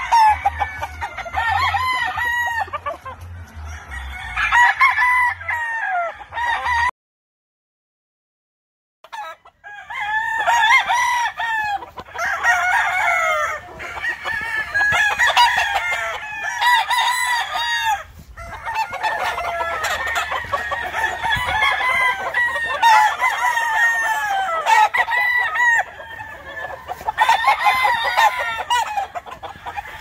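Many gamefowl roosters crowing over one another, crow after crow overlapping without pause. The sound drops out to total silence for about two seconds roughly a quarter of the way in, then the crowing resumes.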